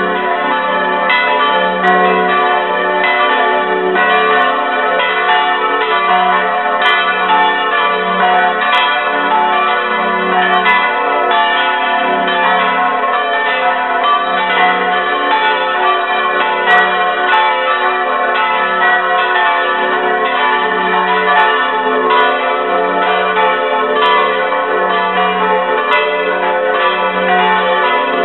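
Several church bells swinging and ringing together, heard close up in the belfry: their strikes overlap in an unbroken peal, with the deep hum of the largest bell pulsing about once a second.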